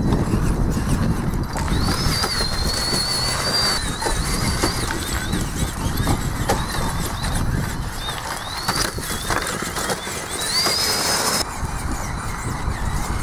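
Traxxas Summit RC rock crawler's electric motor and drivetrain whining in short spurts, the pitch rising as throttle comes on and then holding, with a few clicks of tyres and rocks on loose stone. A steady low rumbling runs underneath.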